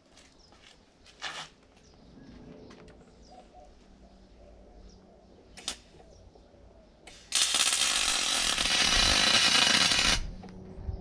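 MIG welder laying a short bead on the golf-cart's steel chassis tubing, shielded with a half-argon, half-CO2 gas mix. The weld starts abruptly about seven seconds in, runs steadily for about three seconds and cuts off. Before it come a few light knocks and clicks as the work is positioned.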